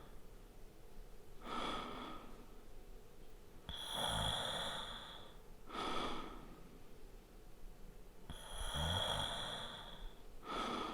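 A man snoring lightly: two slow snore cycles about five seconds apart. Each is a longer breath with a low rattle, followed by a shorter, softer breath.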